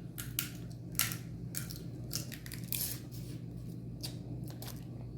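Seafood-boil shells being cracked and snapped apart by hand and teeth: about ten short, sharp cracks at irregular intervals over a low steady hum.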